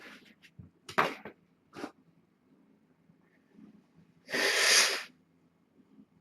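A person sneezing: two short sharp sounds, then one loud sneeze a little past the middle. The sneezing comes from allergies acting up.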